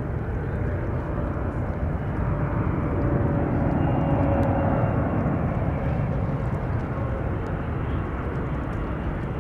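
Boeing 777-300ER on final approach with its gear down, its two GE90-115B engines at approach power: a steady rushing jet noise that swells to its loudest about four seconds in, with a faint whine running through it.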